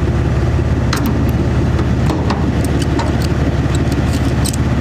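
A vehicle engine idling steadily, with a ratchet strap being worked over it: a run of irregular sharp clicks from about a second in.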